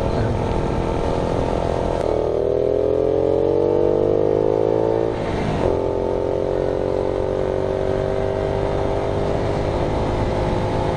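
Honda Monkey Z50J's small single-cylinder four-stroke engine pulling the bike along. It holds steady for about two seconds, rises in pitch until a short break for a gear change about five seconds in, then climbs slowly again in the next gear.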